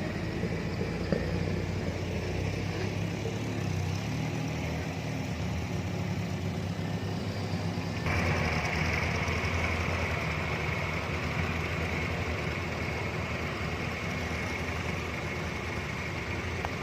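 Four-wheel-drive vehicle engine running steadily at low revs. About eight seconds in, the sound changes abruptly and a steady high whine joins the engine.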